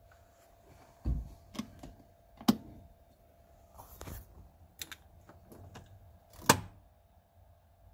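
A dozen irregular clicks and taps, the loudest about a second in, two and a half seconds in and near six and a half seconds, over a faint steady whine from the car speakers: the distortion noise that stays on even with the head unit muted.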